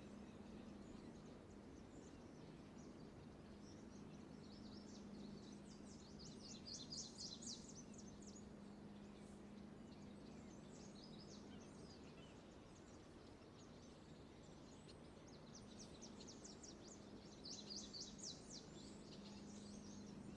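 Faint birdsong: a small bird gives two short rapid trills, several seconds apart, over a steady low hum.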